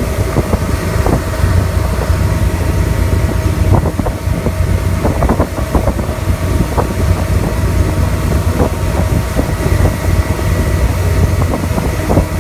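Tow boat's engine running steadily at towing speed, with wind buffeting the microphone and water rushing in the wake.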